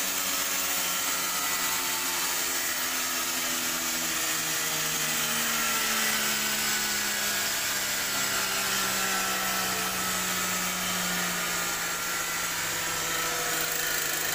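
Heavy-duty pneumatic barrel pump's air motor running steadily while pumping liquid through its hose: a strong, even hiss with a faint whine that drifts slowly in pitch.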